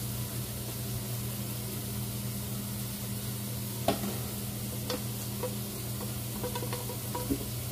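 Meat frying and sizzling in a pan on the stove, with a steady low hum underneath. A sharp clink of metal cookware about four seconds in, then a few lighter knocks.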